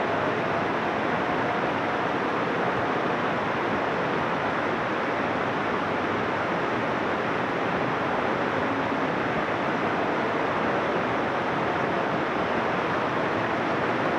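Shallow, rocky river rushing over stones in small rapids: a steady, even rush of water.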